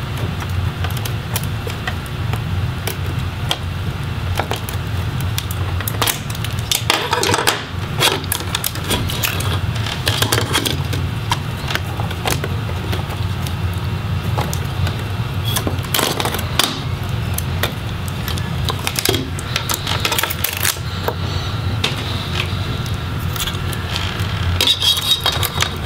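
Scattered clicks, taps and light rattles of plastic and metal laptop parts being handled as the motherboard and cooling fan are lifted out of the chassis and their connectors unplugged, over a steady low hum.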